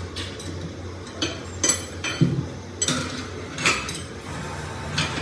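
Metal tools clinking and knocking against metal: about eight separate sharp strikes at irregular intervals, some with a short ring.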